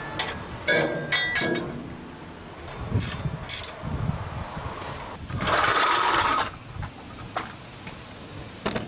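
Metallic clicks and clinks from a stainless drain pipe and its clamp being handled and a wrench being put to the clamp nut. A rasping noise lasts about a second two-thirds of the way through, and a few more clicks come near the end.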